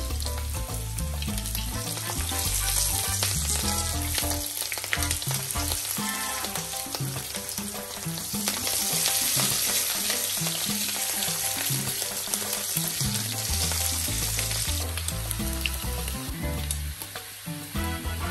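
Bacon strips and halved garlic cloves sizzling steadily in their rendered fat in a nonstick grill pan.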